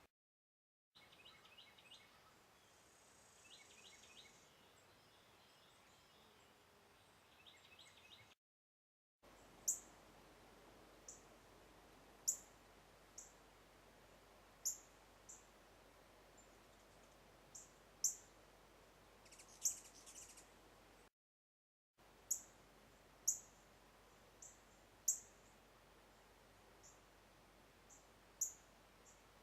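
Ruby-throated hummingbirds calling: short, sharp, very high chip notes, single and irregular, about one a second. Before them come faint, rapid runs of ticks.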